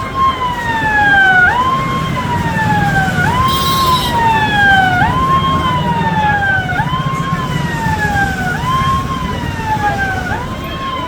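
Siren sounding a repeating wail about every second and a half, each cycle a quick rise and then a slow fall in pitch, over a steady low rumble of surf.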